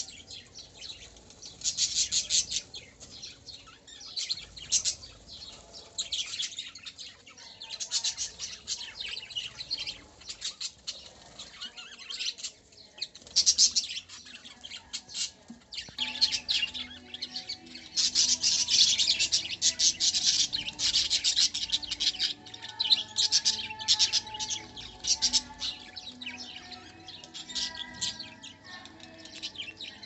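A mixed aviary flock of budgerigars and small finches chirping and chattering, many birds calling at once in rapid, high twitters that swell louder several times, strongest about two-thirds of the way through.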